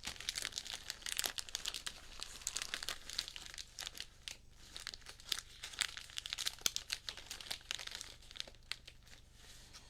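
Cellophane wrapping of sealed trading-card cello packs crinkling and crackling continuously as the packs are handled and unboxed.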